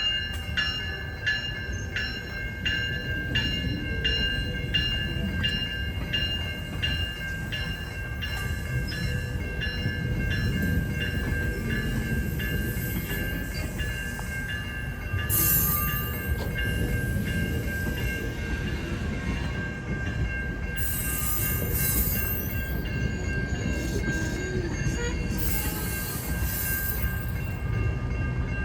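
GO Transit commuter train passing a level crossing, its rumble under the crossing bells, which ring steadily with strokes about twice a second. There are a few short hissy bursts in the second half.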